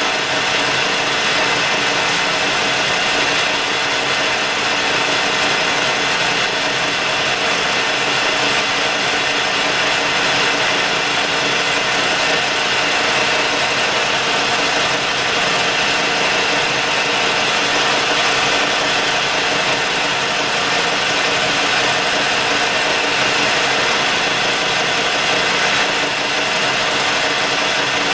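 Colchester metal lathe running steadily in reverse while a turning tool cuts an external taper on the spinning workpiece. A continuous machine sound made of several steady tones over a hiss, with no stops or changes.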